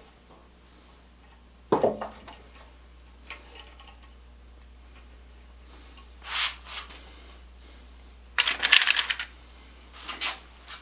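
Small metal parts and hand tools being handled and set down, clinking and rattling: a single knock about two seconds in, then a loud quick rattle of clicks near the end.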